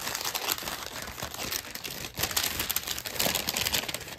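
Packaging crinkling and rustling as hands handle it: a dense, uneven run of small crackles.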